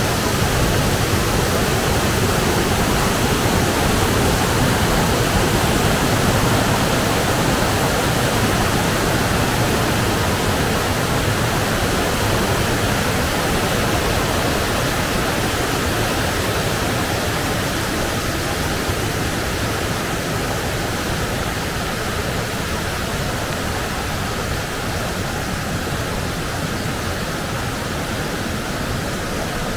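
Rain-swollen mountain river rushing steadily, its water noise slowly easing a little over the stretch.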